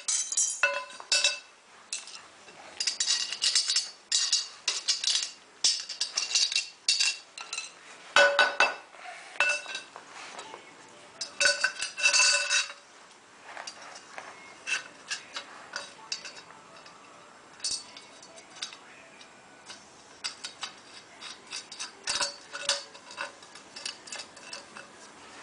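Steel damper parts and hand tools clinking and ringing, with bursts of scraping, as the burrs are cleaned from drilled holes and the stove's damper is put together.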